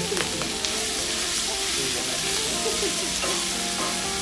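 Chopped pork sisig sizzling steadily on a hot metal plate while it is stirred and scraped with a utensil.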